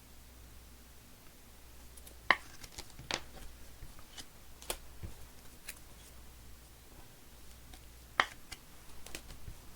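Scattered light clicks and taps in a small room, with two sharper clicks about two and eight seconds in.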